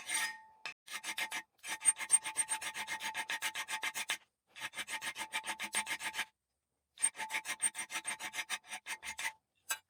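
Hand file rasping across the end of a coil-spring steel punch clamped in a vise, squaring the tip flat. Quick, even strokes come in three runs with two short pauses, over a faint metallic ring.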